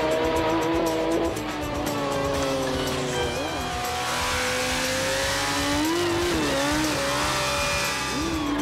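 Race-kitted Suzuki GSX-R superstock motorcycle's inline-four engine at full throttle on a standing-quarter drag run, a high, steady wail that shifts in pitch as the run goes on.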